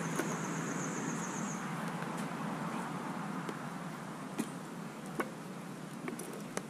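Pot of stew cooking over an open wood fire, with a steady hiss and a handful of sharp clicks and taps from a metal ladle against the wok. A thin high buzz fades out about a second and a half in.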